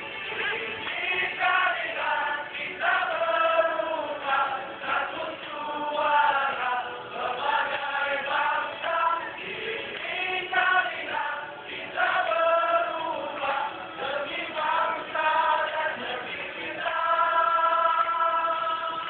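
A party campaign song played over loudspeakers, with many voices singing the melody together in a chorus.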